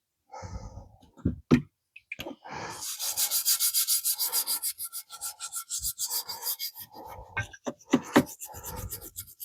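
Brush scrubbing a metal engine part in quick, even back-and-forth strokes for a few seconds, with scattered knocks and scrapes before and after.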